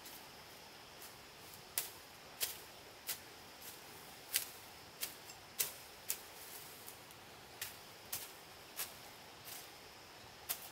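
A series of sharp, light clicks, irregularly spaced at about one or two a second, over a faint steady high hiss.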